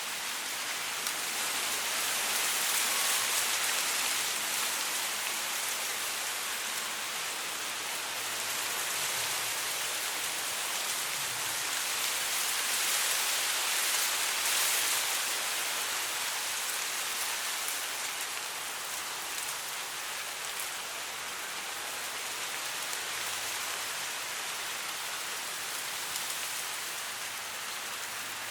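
Wind blowing through dry grass: a steady, high rustling hiss of the blades that swells and eases in slow gusts.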